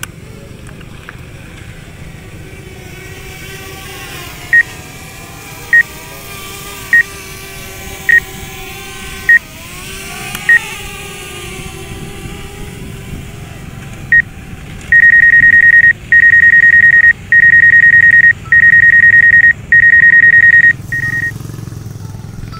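DJI flight app warning beeps: single short beeps about once a second for several seconds, then five long beeps in a row. They sound while the Mavic Air shows a compass error and its battery voltage in red. A steady low hum runs underneath.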